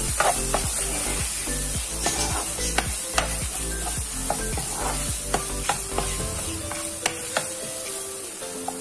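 A metal spoon stirring and scraping vegetable stuffing in a hot non-stick pan: a gentle sizzle under irregular clicks and scrapes of the spoon against the pan.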